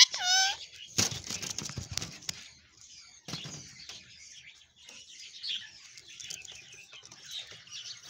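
Rose-ringed parakeet ending a loud squawking call in the first half-second, then rustling and wing flutters close to the microphone about one and three seconds in, with faint bird chirping throughout.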